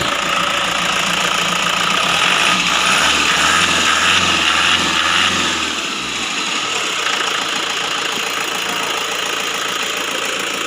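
Diesel engine idling steadily with a diesel clatter, running properly after a replacement crankshaft position sensor has cured its hard starting. It runs a little louder for a few seconds in the middle.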